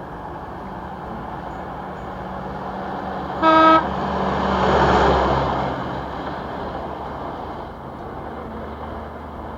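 Road vehicle sound effect: steady traffic-like engine and road noise, one short horn honk about three and a half seconds in, then the noise swelling and fading as a vehicle passes.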